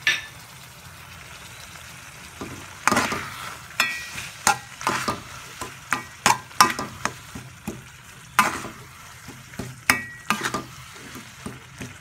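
Metal spoon stirring and scraping chilli paste in a metal pan, with sharp irregular clinks and scrapes about once or twice a second from about two and a half seconds in, over a faint sizzle of the paste cooking.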